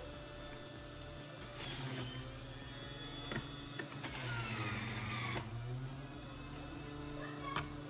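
Centrifugal juice extractor motor running with a steady hum. About a second and a half in, a louder, noisier shredding sound rises as produce is fed into the spinning basket, and the whine falls in pitch under the load before easing off a little after five seconds. A short click comes near the end.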